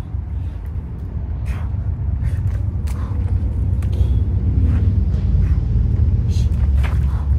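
Steady low outdoor rumble that swells a few seconds in, with a few soft splashes and scuffs of hands and shoes on wet pavement.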